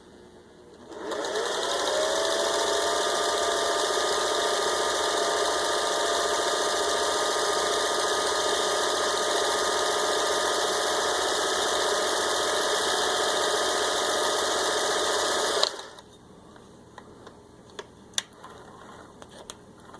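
Singer 401A sewing machine running steadily as it stitches a built-in decorative pattern. Its pitch rises as it comes up to speed about a second in, and it stops suddenly near the end, followed by a few light clicks.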